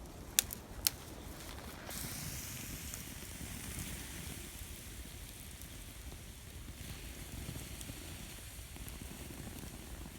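Campfire burning, with two sharp pops about half a second apart near the start, then a steady hiss.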